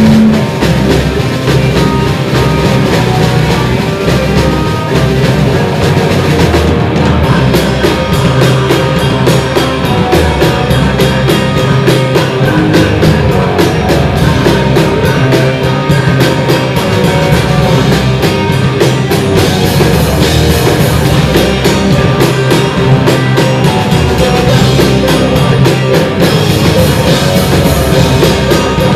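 A crust punk band playing loud: distorted guitar, bass and drum kit. From about seven seconds in, the drumming turns to a fast, even run of hits.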